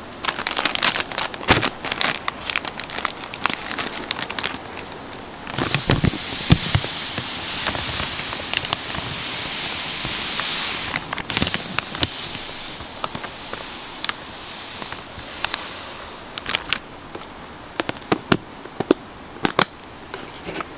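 Plastic sugar bags crinkling and crackling as they are handled. A few seconds in, granulated white sugar pours into a plastic storage container as a steady hiss lasting about five seconds. Crinkling and sharp clicks follow as the container's lid is fitted.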